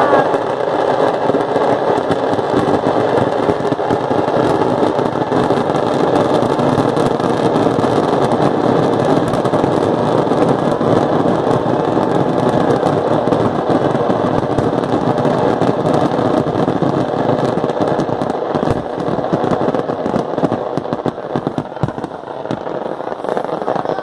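Firecrackers burning beneath a paper hot-air balloon, popping in a dense, continuous crackle. The crackle thins into more separate pops over the last few seconds.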